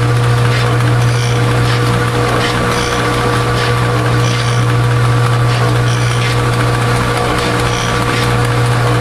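Agglomerator mixer running with a steady low hum and a thin higher whine, with a faint scrape repeating about once a second.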